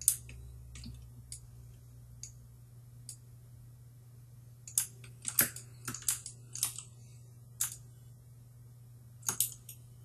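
Computer keyboard and mouse clicks, scattered singly at first, then a quick run of several together, then a couple more near the end, over a faint steady low hum.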